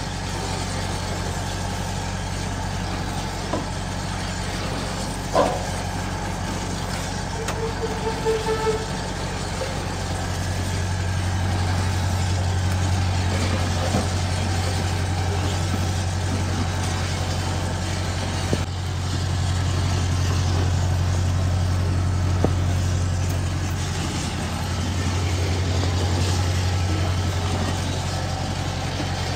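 Electric gear motor of a garri frying machine running, driving the stirring paddle through bevel and spur gears around a steel pan of cassava mash: a steady hum with gear and stirring noise that swells and eases a few times. A single sharp click about five seconds in.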